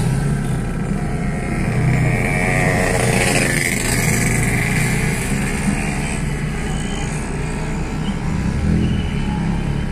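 Motor vehicle engines running steadily in street traffic, a low rumble close to the microphone, with a brief wavering higher sound about three seconds in.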